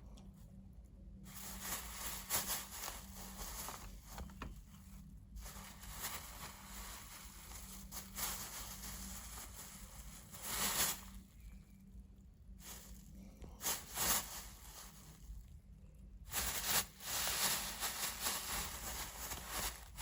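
Plastic bag rustling and crinkling in irregular bursts as a kitten plays with it, with several brief pauses.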